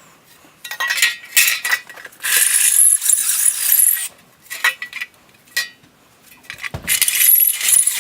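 Power drill drilling out threaded bolt holes in the exhaust hardware ahead of re-tapping them. It runs twice, for about two seconds each time, with metal clicks and clinks before and between the runs.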